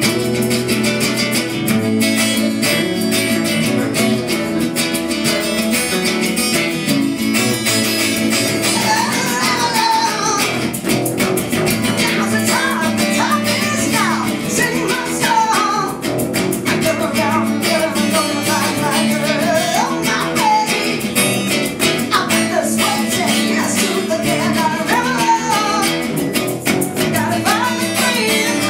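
Acoustic guitar strumming steady chords, with a woman's lead voice singing over it from about eight seconds in.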